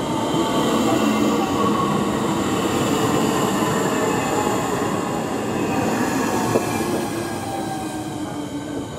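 Electric multiple-unit train running past a station platform: a rumble of wheels on the rails under a whine of several steady tones that dips slightly in pitch and fades near the end. There is one sharp click about two-thirds of the way through.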